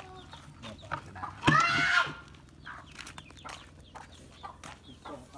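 Chicken calls: one loud, arching call of about half a second about one and a half seconds in, among softer clucks, faint chirps and small clicks.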